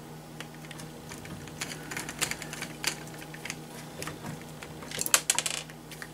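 Light clicks and taps of a screwdriver and small metal screws on the plastic chassis of an RC monster truck being taken apart, with a quick cluster of louder clicks about five seconds in.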